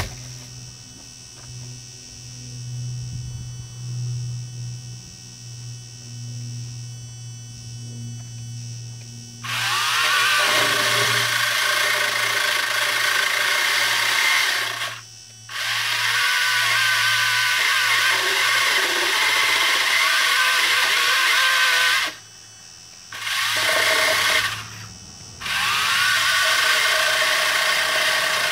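Cordless EGO trimmer powerhead driving a Ryobi pole saw head, its chain running and cutting into a fallen branch. It starts about a third of the way in and runs in four long stretches with short stops between.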